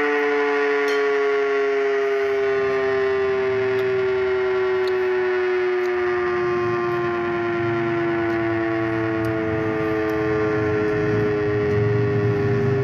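Outdoor tornado warning siren sounding one long, slowly falling tone as it winds down, with a low rumble growing underneath in the second half.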